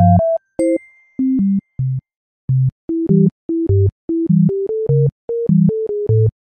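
Background music: a bouncy synthesizer tune of short, clipped notes over a bass line, with one held high chime about half a second in.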